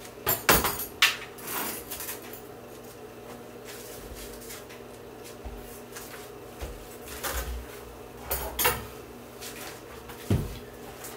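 Things being handled and set down: a run of clattering knocks in the first second or so, a few scattered clicks later, and one more knock near the end, over a faint steady hum.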